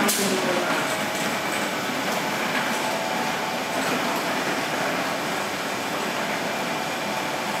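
Steady train noise: an even rumble and hiss with a faint thin whine above it, and no single event standing out.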